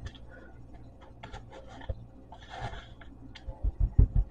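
Kitchen handling sounds as breaded chicken pieces are shaken off and set on a parchment-lined pan: scattered light taps and rustles, a short scratchy rustle about two and a half seconds in, then a few dull thumps near the end.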